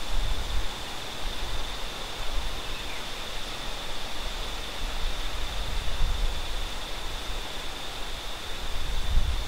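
Outdoor ambience: a steady hiss with a constant thin high tone, and low wind rumble on the microphone that swells near the start and again near the end.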